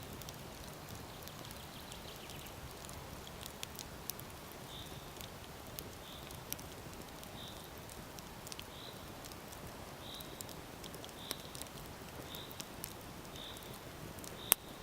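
Small wood campfire crackling, with scattered sharp snaps and one loud pop near the end. A short high chirp repeats about once a second in the background from about five seconds in.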